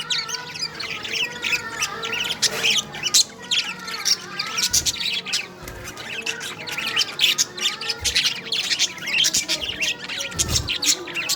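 A flock of budgerigars chattering: a steady stream of rapid chirps and warbling squawks, with a few soft low thumps in between.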